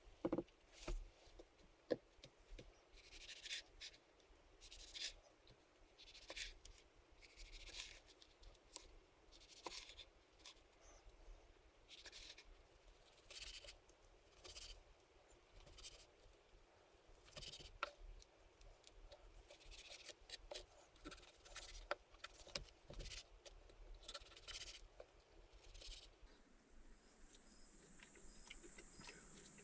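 Quiet, irregular short scraping strokes and light clicks, like hand work with a tool or hands rubbing on a surface. Near the end a steady high hiss sets in.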